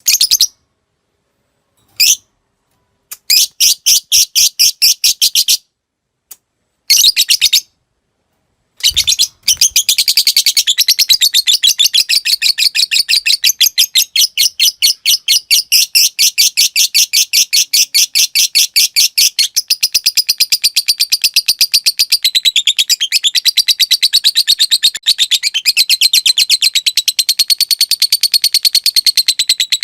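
Lovebird singing a 'ngekek' chatter. For the first nine seconds it comes in a few short bursts of rapid, high-pitched chattering. From about ten seconds in it becomes one long, unbroken, rapid chattering trill.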